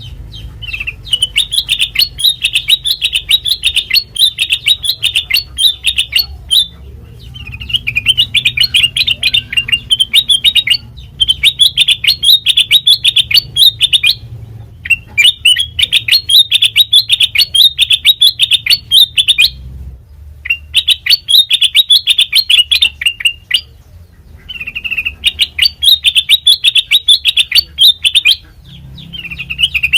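Kutilang mas songbird singing in long runs of rapid, high chirping notes, each run lasting a few seconds with brief pauses between, about seven runs in all.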